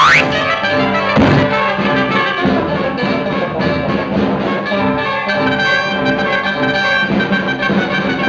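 Orchestral cartoon score led by brass, with trumpet and trombone playing a rhythmic passage; a quick upward glide opens it and a short hit sounds about a second in.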